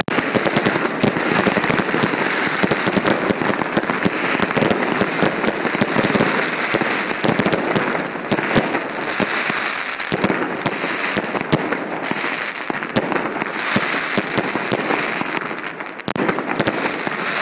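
Fireworks display going off as a dense, unbroken stream of crackling and popping reports, with a brief lull near the end.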